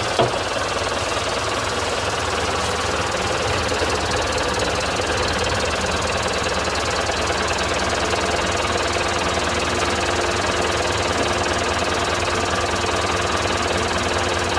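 Norwood LM29 portable band sawmill running, its small engine steady with a rapid, even low pulse; a faint steady tone joins about halfway through.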